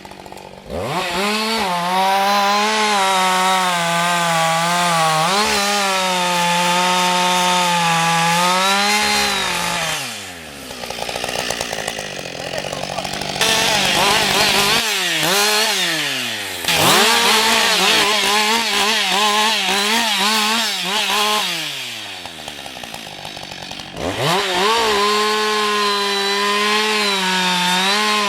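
Husqvarna 560 XP two-stroke chainsaw cutting wood at full throttle, its pitch dipping and recovering under the load of the cut. It drops back to idle twice, around ten seconds and again around twenty-two seconds in, and revs up again each time.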